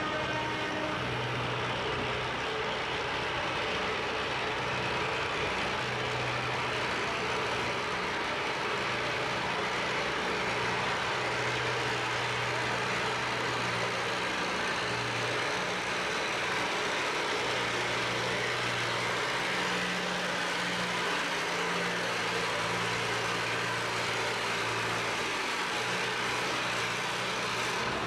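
Tractor engines running steadily: an antique pulling tractor and the larger push tractor moving it back down the pulling track, with no revving or full-power pull.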